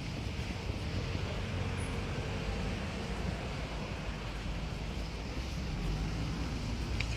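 Steady low rumble of distant engine noise, with some hiss.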